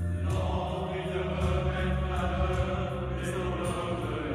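Mixed choir singing in harmony, the voices coming in together right at the start over held low notes.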